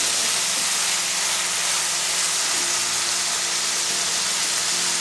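Ground beef frying in oil in a pan: a steady, loud sizzle.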